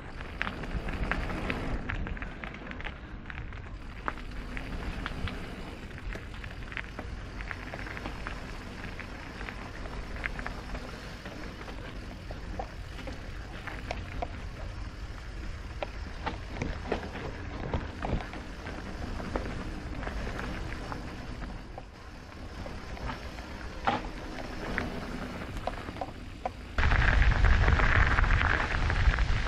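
Mountain bike rolling over a rough gravel trail: tyres crunching over loose stones and the bike rattling, in a steady stream of small clicks and knocks. About three seconds before the end a louder rushing noise sets in suddenly.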